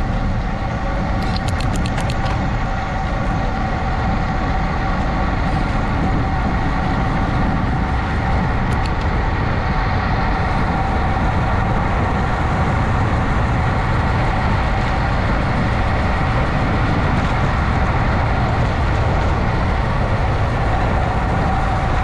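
Steady drone of a vehicle engine running at constant speed over a low rumble, with a few short clicks about two seconds in.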